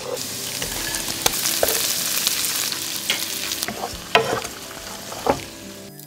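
Minced garlic and then shrimp sizzling in melted margarine in a nonstick wok as a wooden spatula stirs them, with a few sharp knocks of the spatula against the pan. The sizzle fades toward the end.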